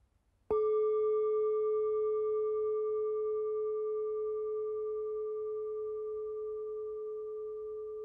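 A single strike on a singing bowl about half a second in, ringing on as one sustained, slowly fading tone with fainter higher overtones.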